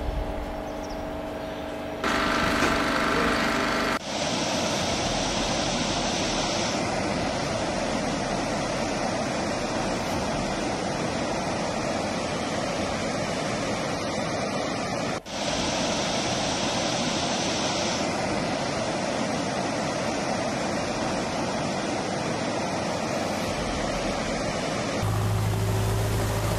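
A steady rushing noise that changes abruptly several times. Near the end it gives way to the low hum of a wheel loader's diesel engine as the loader drives through floodwater.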